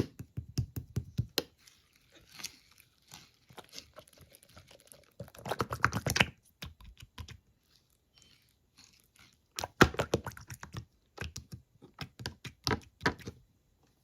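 Slime being handled and pressed, giving runs of quick, crisp clicks and pops in several clusters with short pauses between them.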